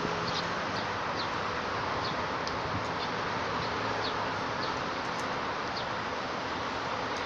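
Steady outdoor background noise with a short high chirp repeated about twice a second.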